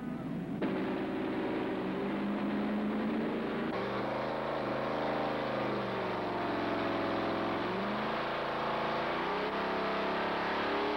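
Van engine revving hard during a burnout, the rear tyre spinning in a cloud of smoke; the engine note sags a little past the middle and then climbs again.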